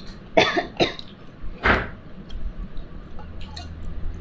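Three short knocks or clatters, the first two close together and a stronger third about a second later, over a low steady hum.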